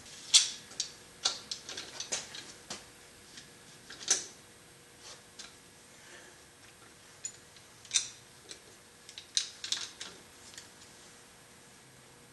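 Sharp metallic clicks and taps from a valve spring compressor being fitted and worked on a Volvo 2.4T cylinder head while the valves are being removed. The clicks come in irregular clusters, loudest about half a second in and again near four and eight seconds, and stop a couple of seconds before the end.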